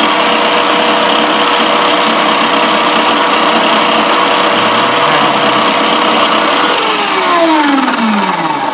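Small diamond-wheel tile saw running free with a steady motor whine, then switched off about seven seconds in and winding down, its pitch falling.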